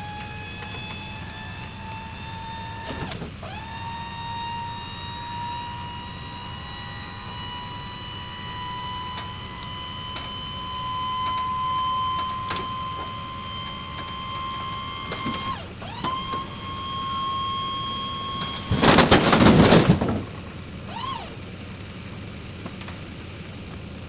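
Dump trailer's electric hydraulic pump whining steadily as it raises the loaded bed, its pitch creeping up slightly; the whine drops out and restarts twice. Near the end, logs slide off the tipped bed with a loud clatter lasting about a second.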